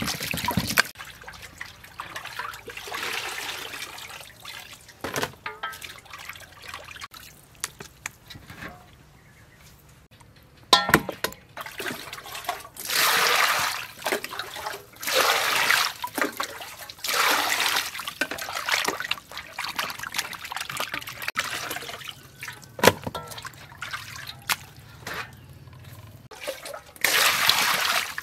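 Water splashing and sloshing in a stainless-steel bowl as hands scrub a whole plucked duck, in irregular bursts with a few sharp knocks.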